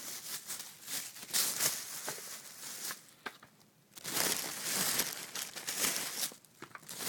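A bag crinkling and rustling in irregular bursts, with a few sharp clicks, as boxed firework cakes are packed back into it; there is a brief lull about halfway.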